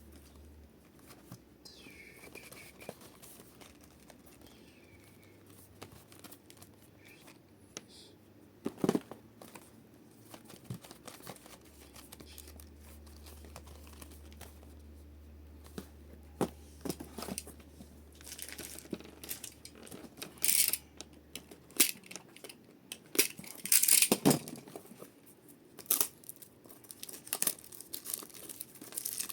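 Pokémon trading card booster packaging being opened by hand: plastic wrapping and packs crinkling and tearing. It starts with faint, scattered handling and becomes louder and denser from about halfway, with several sharp tearing rips near the end.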